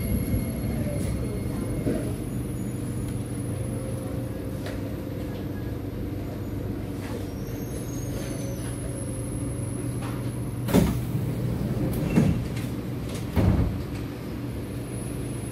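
Cabin sound inside a Kawasaki–Nippon Sharyo C751B metro train car: a steady low hum with faint high whines. Near the end come three loud thuds, about a second apart.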